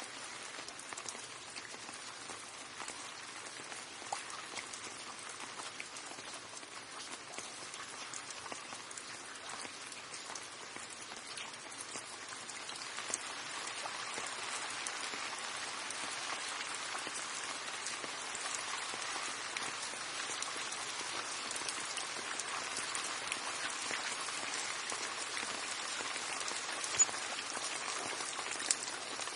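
Steady rain falling, an even hiss with many small drop taps, which gets a little heavier about halfway through. A few louder single drops stand out near the end.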